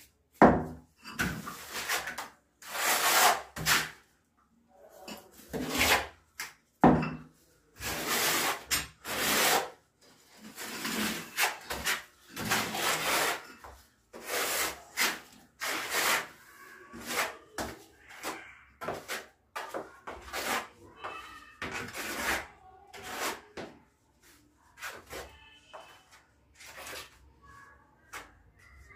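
Steel trowel scraping cement tile mortar: scooping it from a metal pan and spreading it on a wall. A long run of short scraping strokes at an uneven pace of about one a second, quieter near the end.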